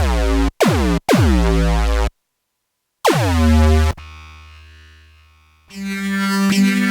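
Arturia MicroFreak synthesizer playing low bass notes, each starting with a quick downward pitch sweep. Three short notes come first, then a pause, then a longer note that fades out, and near the end a held note that steps up in pitch.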